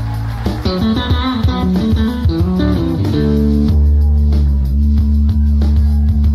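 Jazz-fusion band playing live, with electric bass prominent. A quick run of notes fills the first three seconds, then long low bass notes ring under sustained chords.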